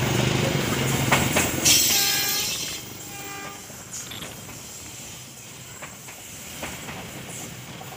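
Passenger train's economy-class coaches rolling past at close range, steel wheels clattering over the rail joints. Loudest for the first few seconds, then quieter as the rest of the coaches keep going by.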